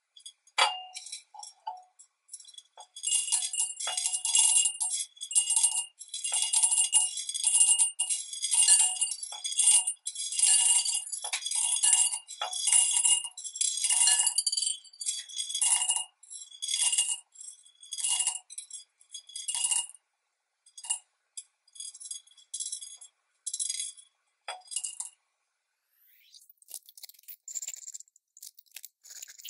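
Small beads clattering into a small glass jar as they are scooped and poured in handfuls: dense runs of rattling clicks that thin to scattered single clicks and stop about 25 seconds in.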